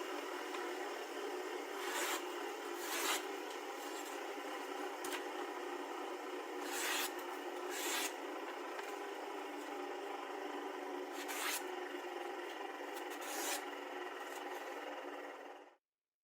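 Steady abrasive rubbing and scraping, with an occasional louder stroke every second or few, stopping abruptly near the end.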